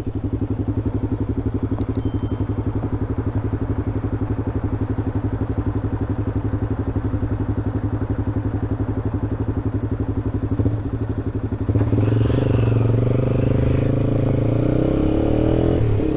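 Honda CBX 250 Twister's single-cylinder engine running through a Roncar aftermarket exhaust at a steady cruise. About twelve seconds in it gets louder and rises in pitch as the bike accelerates, with a brief dip near the end.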